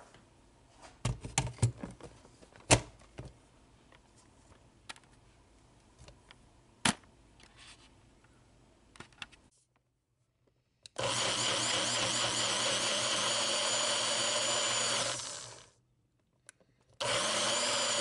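A few sharp clicks and knocks as the Baby Bullet blender cup is handled. Then the Baby Bullet's motor runs steadily for about four seconds, pureeing peas and water, and winds down. It starts again near the end.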